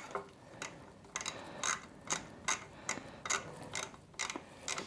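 Hand socket ratchet clicking in short back-and-forth strokes, about three sharp clicks a second, as it loosens the 10 mm nuts on a motorcycle's oil filter cover.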